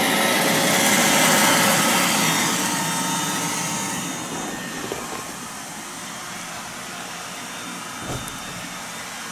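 Roomba robot vacuum running with a steady whirring hum, loudest in the first couple of seconds and growing fainter after about four seconds. A single soft low thump comes near the end.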